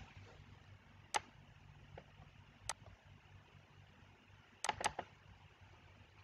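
Computer mouse clicking: single sharp clicks about a second in and near three seconds, then a quick double click near five seconds, over a faint low hum.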